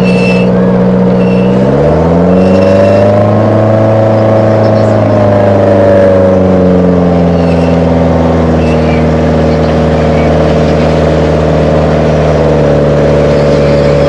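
Boat engine running close by, revving up about two seconds in, holding, then settling back to a steady lower speed.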